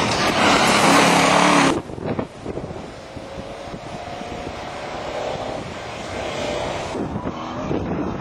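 Off-road racing 4x4's engine running hard close by, then cutting off abruptly about two seconds in to a quieter engine revving up and down further off.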